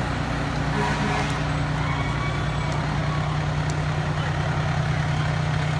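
Fire trucks' diesel engines running steadily as they crawl past at parade pace: a continuous low rumble.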